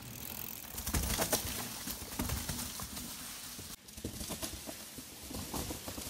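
Mountain bike rolling down a dirt trail strewn with dry leaves: the tyres crunch over the litter amid irregular clicks and rattles from the bike. The sound drops out briefly a little under four seconds in.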